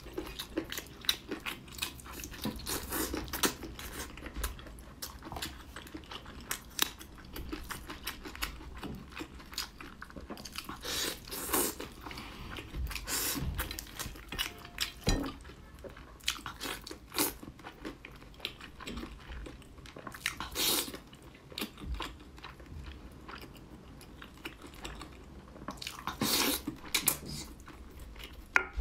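A person chewing and biting very tender pork rib meat, with many irregular wet mouth clicks and smacks.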